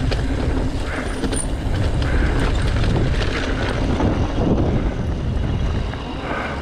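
Mountain bike rolling over dirt and gravel, tyres and frame rattling, with wind rumbling over the microphone. The sound eases a little near the end as the bike slows.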